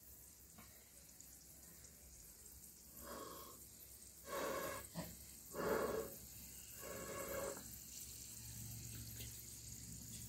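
Four short puffs of breath blown through a blowpipe into the wood fire of a miniature clay stove, fanning the flames; the puffs come about a second apart, starting a few seconds in, over a faint steady hiss.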